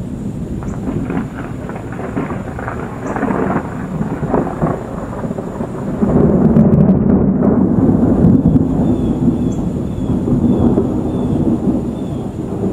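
Thunder from a dry thunderstorm, with no rain or wind under it. It rolls and crackles over the first few seconds, then grows into a louder, deeper rumble about six seconds in that keeps rolling.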